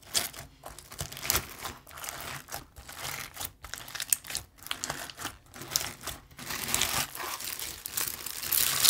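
Styrofoam balls packed in clear slime crackling and crunching against each other as hands squeeze, press and pull the slime: a dense run of irregular crackles, louder near the end.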